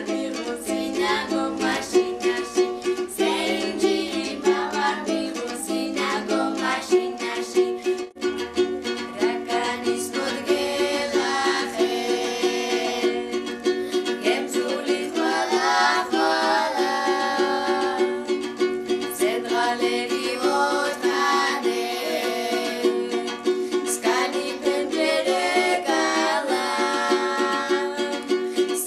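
Laz folk song: a small long-necked plucked lute strummed in a steady rhythm, with voices of a woman and children singing the melody over it.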